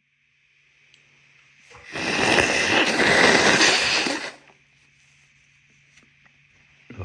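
A person blowing their nose hard: one loud, rough rush of air lasting about two and a half seconds, with no voice in it, starting about two seconds in. It comes amid a bout of wet sneezing.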